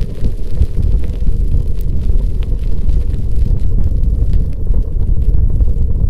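Wind buffeting the microphone on a moving bicycle: a loud, fluctuating low rumble, with faint ticks above it.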